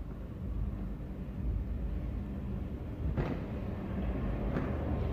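A steady low rumble with two sharp clicks, one about three seconds in and another near the end.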